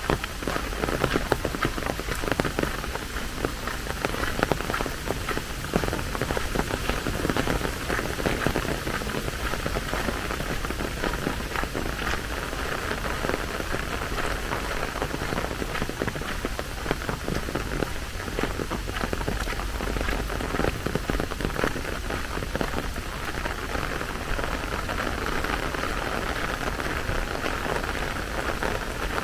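Steady rain falling, with a dense patter of individual drops close by.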